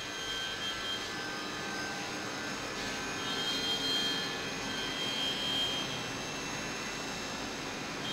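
CNC milling machine running: a steady mechanical hum with a high whine that fades in and out several times.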